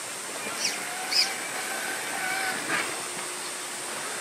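Axial SCX6 1/6-scale RC rock crawler's electric motor and gearbox whining faintly, the pitch wavering as it crawls over rock, with a few short clicks, over a steady hiss.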